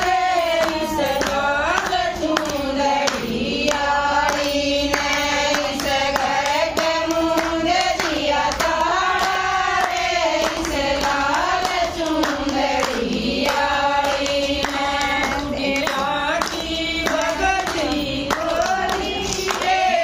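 A group of women singing a devotional bhajan together in one voice, keeping time with steady hand claps.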